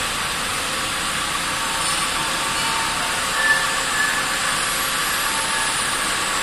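Steady machine-shop background noise: an even hiss with faint steady hum tones. A faint high whine slowly falls in pitch in the second half.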